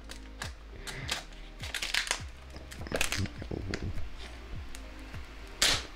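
Thin plastic protective film crinkling and crackling in irregular little snaps as it is peeled off a new phone and handled, with a louder crackle near the end. Soft background music runs underneath.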